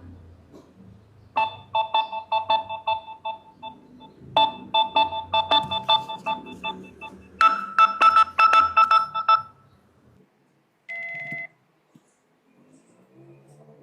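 Mobile phone alarm and ringtone beeps: two bursts of the same rapid electronic beeping, then a higher-pitched beeping pattern for about two seconds, then a single short beep.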